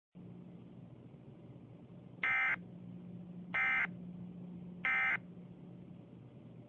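Three short data-tone bursts of an Emergency Alert System (SAME) signal, about a second and a third apart, each about a third of a second long: the end-of-message code that closes an alert. Under them runs a steady low hum with hiss.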